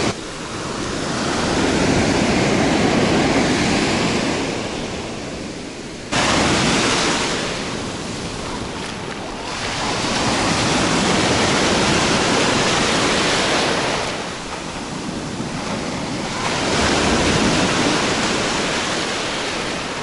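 Black Sea surf breaking on a dark sandy shore and washing up the beach, swelling and fading in waves every few seconds; one wave breaks with a sudden crash about six seconds in.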